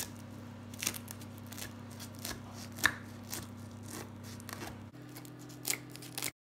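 A knife slicing through the crisp, flaky crust of a pan-fried börek made of yufka pastry, the layers crackling in scattered crunches every half second or so over a low steady hum. The sound cuts off near the end.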